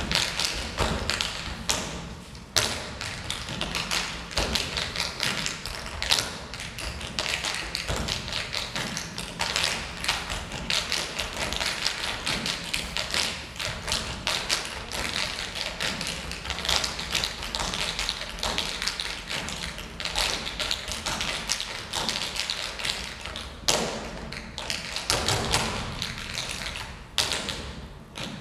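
Tap shoes with metal plates, worn by a group of dancers, striking a stage floor in fast, dense rhythms of clicks and stamps, with a couple of short breaks near the end.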